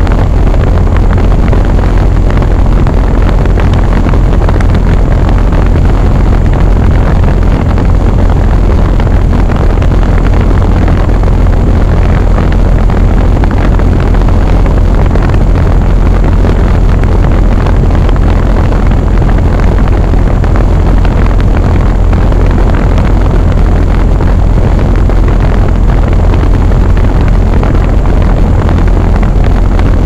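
York Affinity Series 3S 3.5-ton central air-conditioner condensing unit running steadily: the condenser fan's rush of air over a steady low hum. It is heard very close, with the camera resting on the fan grille.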